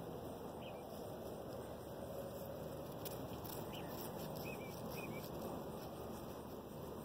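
Steady outdoor background hiss with a few faint, short high chirps scattered through it.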